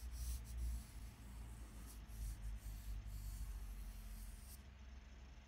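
Faint, soft rubbing of a fingertip blending chalk pastel on paper, in short repeated strokes.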